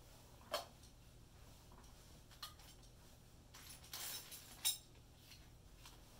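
Faint handling noises from a white plastic weather-station sensor array being turned in the hands and set down on its tripod base: a few light plastic clicks and knocks, with a brief rustle just before the last sharp click.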